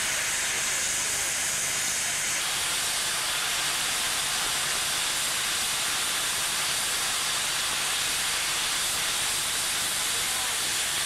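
Steady hiss of steam escaping from a standing RENFE 282F Garratt steam locomotive, 282F-0421, changing slightly in tone a couple of seconds in.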